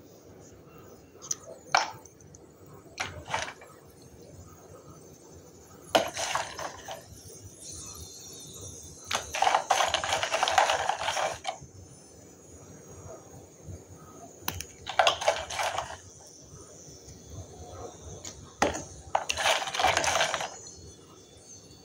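Water-soaked lumps of dry clay crushed and crumbled by fingers in a bowl of water: a few short cracks, then longer bursts of wet crunching and splashing, the longest and loudest about ten seconds in.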